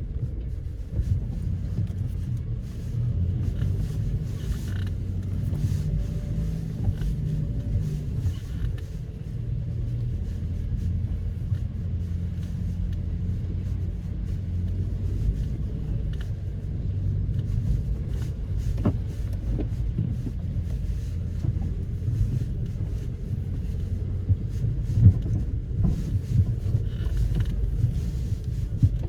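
Nissan X-Trail T30's 2.0-litre petrol four-cylinder engine running at low speed while driving off-road: a steady low rumble whose pitch rises and falls slightly. A few short knocks come through, the loudest about 25 seconds in.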